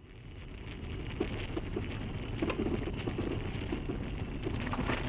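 A vehicle driving: a steady low rumble that fades in over the first second, with scattered faint light knocks.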